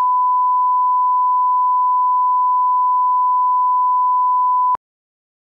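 Broadcast 1 kHz line-up tone that runs with colour bars for setting audio levels: one steady, unchanging pitch that cuts off suddenly near the end.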